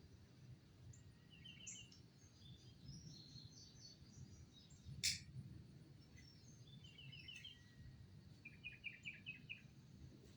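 Faint birdsong: several short trills of quick repeated chirps, with other high notes between them. A single sharp click sounds about five seconds in.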